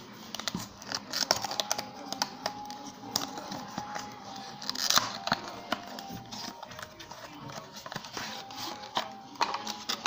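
Crinkling of a clear plastic cable packet and rustling of a small cardboard box being opened by hand, in irregular crackles and clicks with a louder burst of crackling about halfway through.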